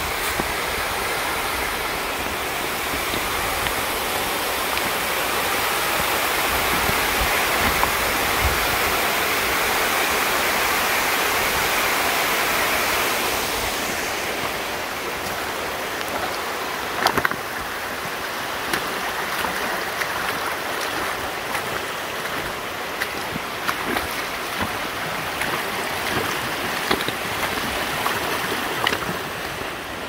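A small waterfall rushing steadily, loudest in the first half, then giving way to a shallow rocky creek flowing. From about the middle on, scattered footsteps crunch on dry leaves and loose stones.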